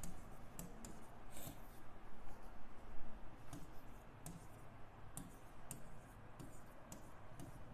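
Pen tapping and scratching on a writing board as words are written by hand: irregular sharp clicks, faint against a low room hum.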